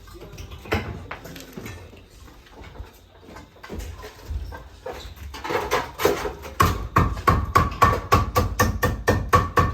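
Hand saw cutting lumber: quick, even back-and-forth strokes that start about halfway through and run at about four strokes a second.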